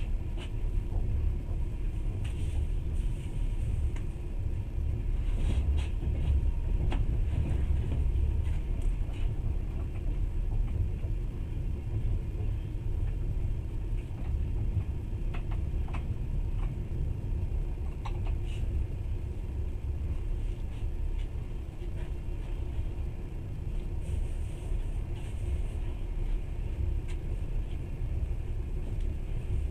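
Train running along the track, heard from inside the carriage: a steady low rumble of wheels on rails, with a faint steady hum and scattered light clicks and rattles.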